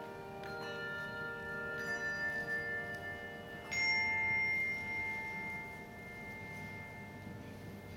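Handbell choir ringing a few staggered chords, the last and loudest struck about four seconds in and left to ring out as the closing chord of the piece.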